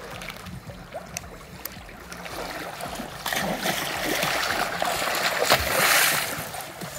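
Pool water churning and splashing as a long silicone mermaid tail's fluke kicks at the surface. The splashing builds from about halfway through and is loudest near the end in one big fluke splash.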